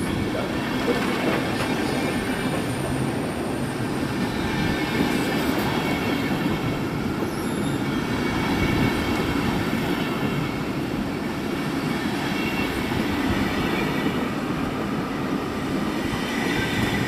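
Deutsche Bahn Intercity coaches rolling past along a platform, a steady rumble of wheels on the rails with a faint high squeal from the wheels.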